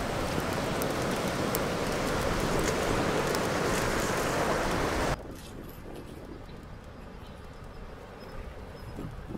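Wind buffeting the microphone, a loud steady rush with a few crackles from a small wood fire. It drops suddenly a little over five seconds in to a much quieter rush of wind.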